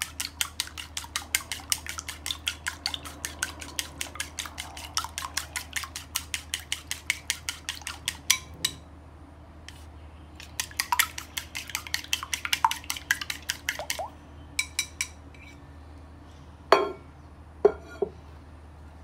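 Eggs being beaten with wooden chopsticks in a ceramic bowl: fast, rhythmic clicking of the chopsticks against the bowl, about five or six a second, with a short pause partway through before it resumes. Near the end it stops, and two louder knocks follow.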